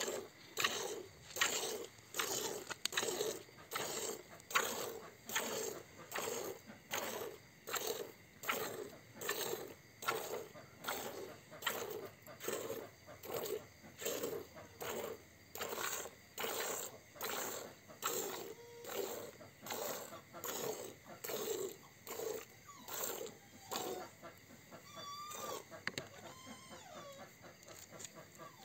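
Hand-milking a buffalo: squirts of milk hitting the bottom of a plastic bucket in a steady rhythm, about three every two seconds. The squirts grow quieter near the end, where a few short high calls sound.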